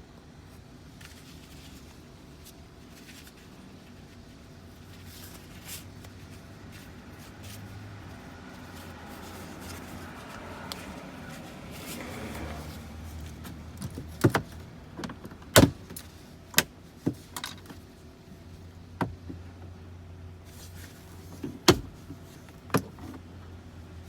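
Plastic interior trim panels of a 2018 Jeep Grand Cherokee being pried off by hand: rustling and scraping at first, then about ten sharp snaps and clicks in the second half as the retaining clips pop loose.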